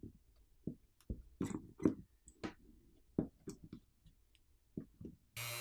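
Irregular, faint clicks and scrapes of tools against a plastic charger housing as it is worked open, about a dozen of them. A steady hum starts near the end.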